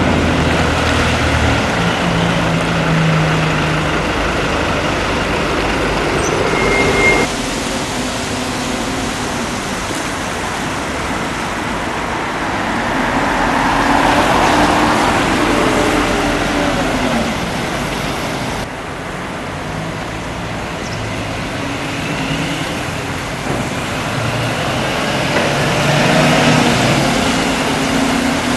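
Road traffic with large diesel vehicles such as buses running and passing, their engines humming low. The sound changes abruptly twice, about 7 and 19 seconds in, and one vehicle swells past in the middle.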